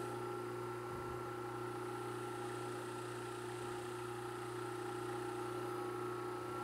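Electric motor of a homemade 18-inch disc sander running steadily at speed with its freshly static-balanced disc, an even hum with no change in pitch.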